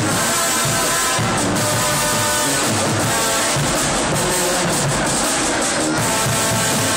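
Marching band playing: brass instruments holding pitched lines over steady drumming.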